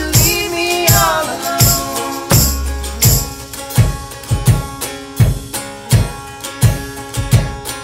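Live folk-rock music from a duo: a sung phrase near the start over a box-bodied (cigar box style) guitar, then a steady drum beat with cymbals, about three hits every two seconds.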